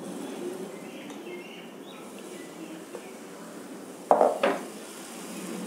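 Metal spoon clinking against cookware as gram-flour batter is spooned onto a hot tawa, with two sharp knocks about four seconds in.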